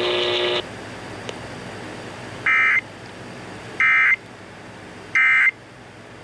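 Emergency Alert System SAME digital data bursts: three short, identical buzzy squawks about 1.3 s apart. Their shortness fits the end-of-message (NNNN) code that closes an alert. Just before them, about half a second in, the previous broadcast audio cuts off.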